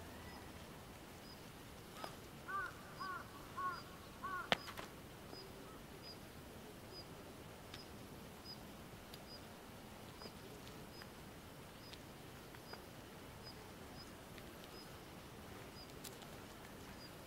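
A crow cawing about five times in quick succession two to five seconds in, with a sharp click at the end of the run. Faint, short high chirps repeat about once a second over a quiet outdoor hiss.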